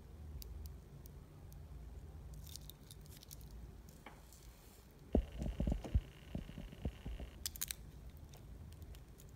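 Stainless steel link bracelet of a wristwatch clinking and its clasp clicking as the watch is handled, with a few dull knocks about five to six seconds in.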